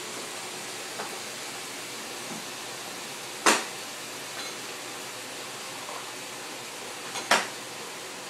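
A spoon knocking sharply against a bowl twice, about four seconds apart, with a few fainter ticks, over a steady background hiss.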